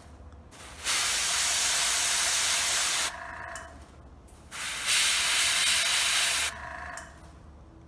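Airbrush spraying paint in two bursts of hiss, each about two seconds long, with a quieter hiss between them.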